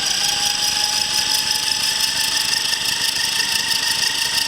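Electric Align Trex 450 RC helicopter's motor and rotors running under throttle: a steady whine that rises a little in pitch in the first second, then holds. The whole helicopter is shaking, which the owner takes as a sign that something is unbalanced.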